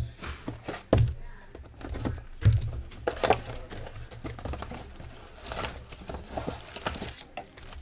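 A cardboard trading-card box being handled and opened on a table: two sharp knocks about one and two and a half seconds in, then crinkling and tearing as it is unsealed and its foil packs are pulled out.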